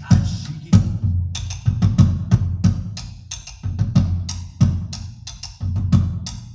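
Drum solo: deep drum strokes mixed with sharper, higher hits, a few a second in an uneven, driving rhythm.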